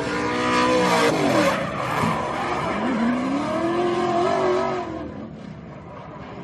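Car engines revving, their pitch rising and falling, with one sharp drop in pitch about a second and a half in, and the sound fading after about five seconds.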